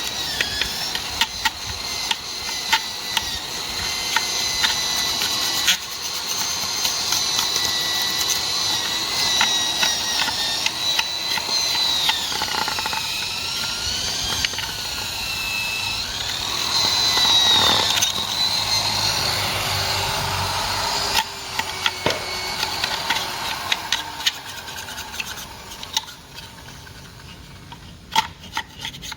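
Electric drill driving a wire brush against an engine component to scour off carbon deposits. Its motor whine sags and recovers as the brush is pressed on, over a scratching rasp from the bristles. It stops about 26 seconds in, leaving scattered light clicks.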